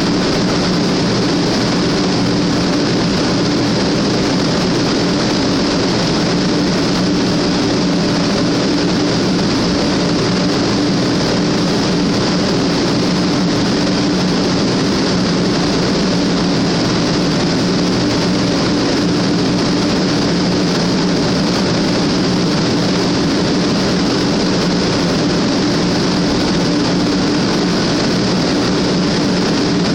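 Sanyo Shinkansen train noise: a loud, unbroken rushing with a steady low hum underneath, holding the same level throughout.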